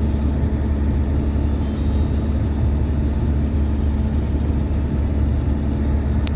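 GAZelle van driving at a steady pace, its engine and road noise making a constant low drone. A short click comes near the end.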